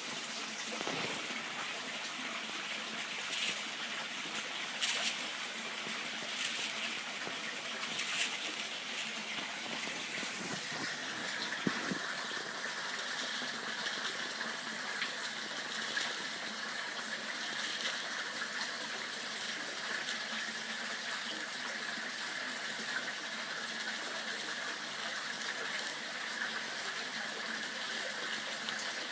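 Koi pond waterfall: water pouring steadily over a ledge and splashing into the pond.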